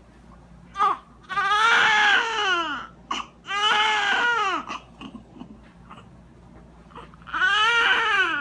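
Newborn baby crying: a short cry about a second in, then long wails that each rise and fall in pitch, with a pause of about two seconds before the last wail starts near the end.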